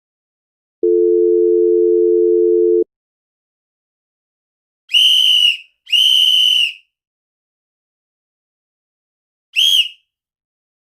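A steady telephone dial tone for about two seconds, then a shrill whistle blown twice for about a second each, and once more briefly near the end.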